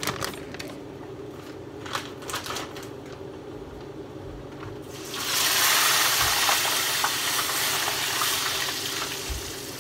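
A coated tilapia fillet laid into hot frying oil: a few clicks and knocks of handling, then about halfway through a sudden loud sizzle of spattering oil that slowly eases off.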